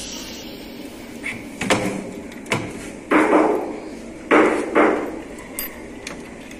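Teak wood cabinet doors being handled: a string of short knocks and clicks from the doors and their metal bolt latches, with two longer scraping sounds in the middle as the doors are moved.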